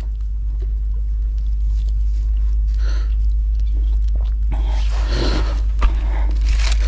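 Steady low wind rumble on the microphone, with a stretch of rustling and handling noise and a few clicks from about halfway through.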